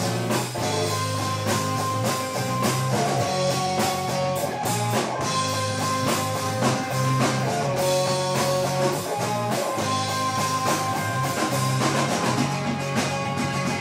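Rock band playing: guitars, bass guitar and drum kit.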